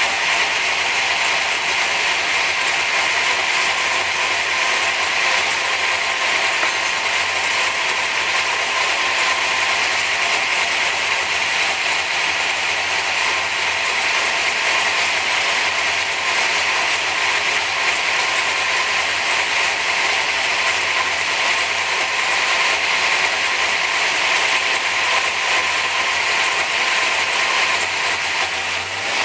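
440 cubic inch small-block Chevrolet race engine running on an engine dynamometer, a loud, even, rapid mechanical chatter held at one steady speed with no revving.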